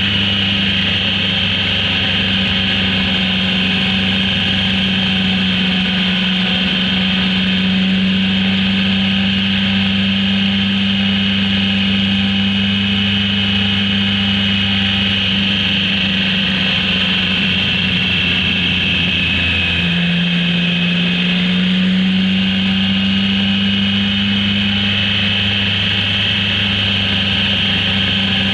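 Motorcycle engine running steadily under way. Its note drops about twenty seconds in and then climbs back up.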